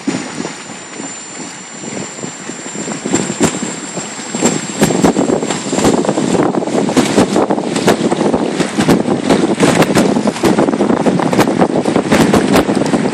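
Wind buffeting a phone's microphone in uneven gusts, with crackling rumble, quieter at first and growing louder from about five seconds in.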